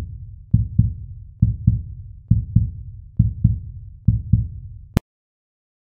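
Heartbeat sound effect: five low double thumps, lub-dub, repeating a little faster than once a second. A short click comes about five seconds in, and then it cuts off.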